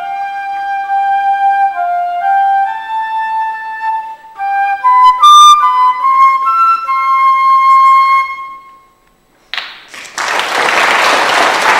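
Solo flute playing a slow melody of held notes, closing on a long final note about eight seconds in. After a short pause the audience applauds.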